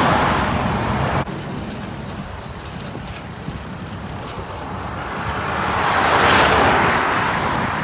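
Passing road traffic: a van goes by close with a rush of tyre and engine noise that cuts off abruptly just over a second in. Then the low steady drone of a Kubota L2402DT tractor's diesel engine as it drives along, with a second vehicle swelling loud as it passes about six seconds in.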